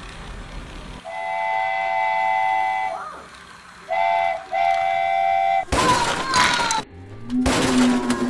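Toy locomotive's electronic horn sounding three times, one long, one short and one long, as a steady chord of tones. It is followed by louder, noisier clatter as the train runs into the tower of wooden blocks.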